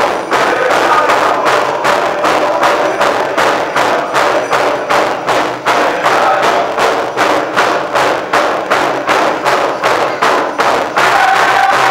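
Pow-wow drum group playing: a large drum struck in a steady, even beat, with the singers' voices rising over it near the start and again near the end.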